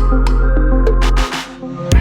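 Background electronic music: a steady bass line that drops out for a moment past the middle, then heavy beats come back in near the end.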